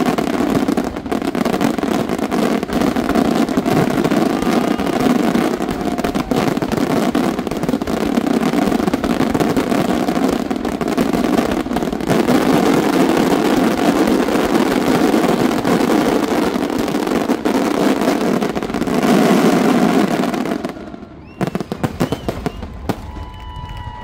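Aerial fireworks finale: a dense, continuous barrage of shell bursts and crackle merging into one unbroken wall of explosions, which stops abruptly about 21 seconds in. A few scattered pops and rising whistles follow.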